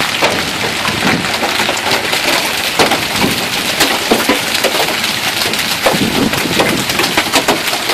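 Hail and heavy rain pelting pavement and parked cars: a dense hiss packed with many sharp ticks and knocks of hailstones striking.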